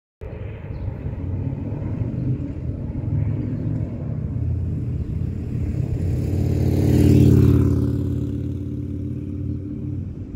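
Harley-Davidson Sportster 883's air-cooled V-twin through a Supertrapp SuperMeg 2-into-1 exhaust, riding by at about 25 mph. The exhaust note grows as the bike approaches and is loudest about seven seconds in, then drops in pitch and fades as it moves away.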